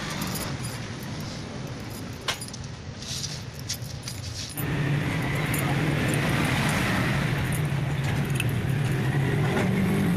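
Steel wire spokes clinking and jangling against each other as they are handled and threaded into the flange holes of a motorcycle wheel hub, with scattered light metallic ticks. About four and a half seconds in, a louder steady low hum starts up beneath it and continues.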